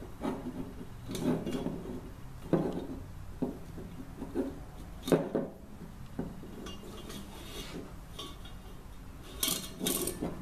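Soft copper tubing rubbing, scraping and clinking against a metal propane cylinder as it is wound into a tight coil, with irregular knocks on the wooden tabletop. A quick run of clinks comes near the end.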